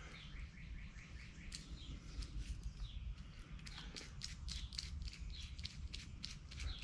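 Faint, quick wet clicking and squishing as high-temperature grease is pressed and worked into a tapered roller wheel bearing in a gloved palm, with a few short high chirps among the clicks.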